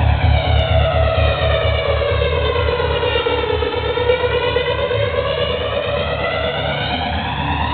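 House music playing loud over a club sound system: a siren-like synth sweep glides down in pitch for about four seconds and then back up again. Underneath it a thumping bass beat pulses several times a second, growing less distinct past the middle.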